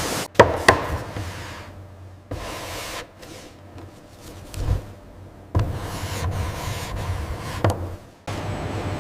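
Wood being handled in a plywood mill: two sharp wooden knocks near the start and another near the end, over rubbing and machine noise that changes abruptly several times.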